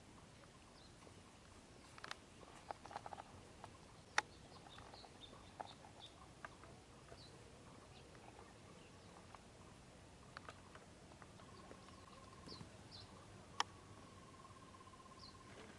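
Quiet outdoor ambience with faint, short, high bird chirps scattered throughout. A few sharp clicks stand out, the loudest about four seconds in and again near the end, and a thin steady tone sounds during the last few seconds.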